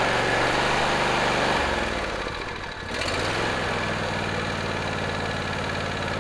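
John Deere D130 riding mower's twin-cylinder engine running just after being started on fresh oil, filters and spark plugs. Its note shifts about a second and a half in, dips briefly near the three-second mark, then settles into a steady run.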